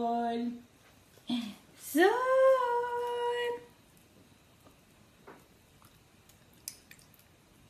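Humming: a short note, then a longer one that rises and holds for about a second and a half. The held tail of a dog's howl fades out in the first half second. A few faint ticks follow.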